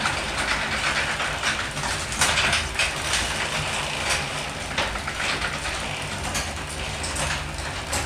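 Garage door opener running a sectional garage door down, a steady mechanical hum with frequent clicks and rattles from the door moving along its tracks. The door closes only while the wall button is held down, the sign of a safety-sensor fault.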